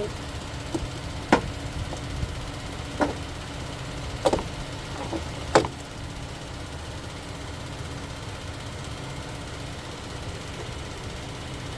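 Half a dozen sharp plastic clicks and knocks during the first six seconds as a car's plastic fender liner and its clips are worked into place with a hand tool, then a steady low rumble alone.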